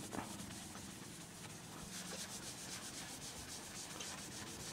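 Foam applicator pad rubbed by hand back and forth over a car's painted body panel, buffing in scratch-remover compound: a steady, rhythmic rubbing swish.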